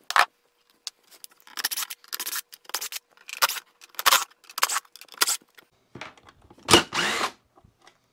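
Craftsman 20V cordless impact driver run in short, irregular bursts, backing out the fasteners of a snow thrower's side cover, with clatter as the tool and parts are handled. One longer burst near the end rises in pitch as the driver speeds up.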